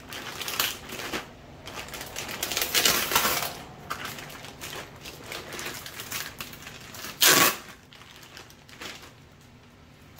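Thin clear plastic packaging crinkling and rustling in irregular bursts as plastic-wrapped canvas saddlebags are handled and pulled apart. One short, sharp, loud crackle comes about seven seconds in.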